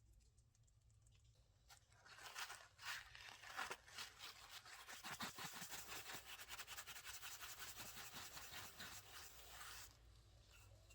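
Hand abrasive rubbing: rapid, scratchy back-and-forth strokes, starting about two seconds in and stopping near the end.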